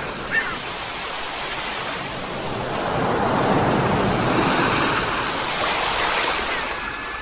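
Sea waves washing on a shore, a wave swelling up about halfway through and falling back. A couple of short seagull calls come at the start and near the end.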